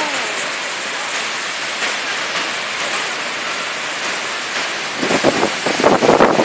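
Horseshoe Falls at Niagara, a steady, even rush of water pouring over the brink. About five seconds in, gusts of wind buffet the microphone in uneven rumbles that become the loudest sound.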